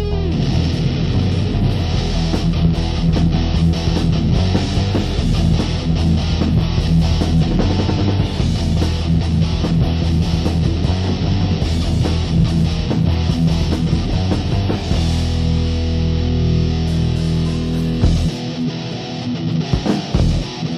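Hardcore punk from a 1990 cassette demo recording: a band playing with electric guitar to the fore. About eighteen seconds in, the deepest part of the sound drops away and it thins out.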